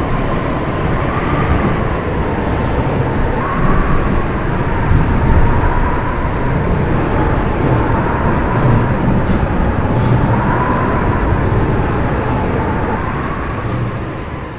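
Tornado wind: a loud, continuous rush of wind with a low rumble underneath and a thin whistling tone that wavers slowly up and down in pitch.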